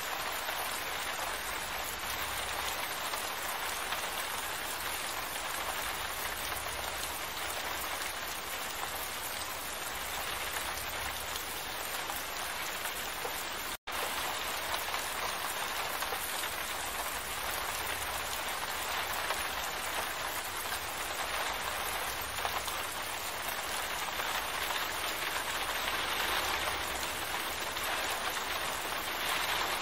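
Steady, heavy rain: a dense, even hiss of falling drops, broken once about halfway through by a split-second gap of silence.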